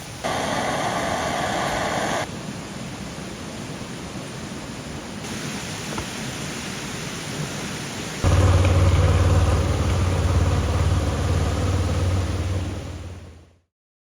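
Steady hiss, louder for the first two seconds, then about eight seconds in an engine, most likely the Honda VFR800F's V4, catches and runs at a steady idle before fading out near the end.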